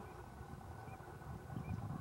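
Faint calls of flying snow geese, two short ones about a second in and near the end, over a low, uneven rumble.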